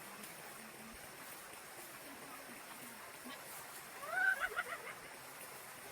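A chicken calls once, about four seconds in: a short rising squawk broken into a few quick clucks, over a faint steady outdoor hiss.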